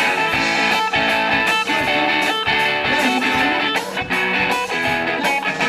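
Guitar music: chords strummed and picked over a steady beat with sharp regular hits.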